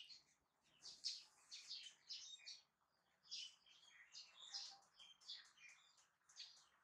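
Faint, high-pitched chirping squeaks from a baby monkey, coming in several short bursts.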